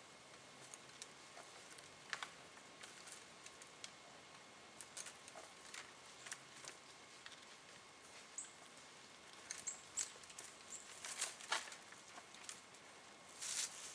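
Faint, irregular rustling and clicking of twigs and stems as a whitetail buck rubs his antlers on a tulip poplar stump sprout, with a cluster of louder cracks about two-thirds of the way through and again near the end.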